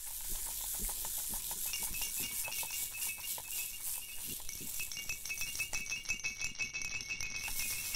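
Rain pattering steadily onto rocks, a dense hiss of many small drop impacts. A high-pitched trill runs alongside it from about two seconds in.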